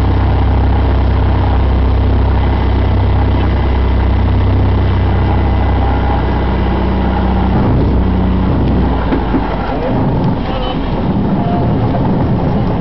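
Cessna 180's six-cylinder piston engine and propeller running with a steady drone on the low final approach. About eight seconds in, the drone drops away as power comes off at touchdown, and a rougher rumble takes over as the plane rolls out on the sand.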